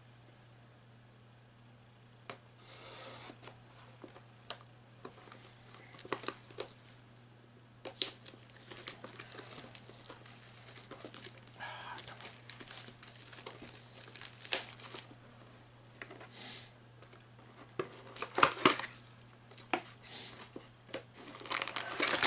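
Packaging on a DVD box set being torn open and crinkled by hand: irregular crackles and rips, sparse at first, then busier and louder in the second half.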